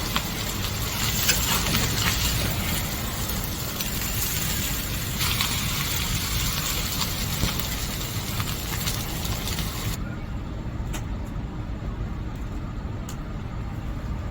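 Steady low rumble of a motor vehicle engine with street noise; the upper hiss cuts off abruptly about ten seconds in, leaving the low rumble and a few faint clicks.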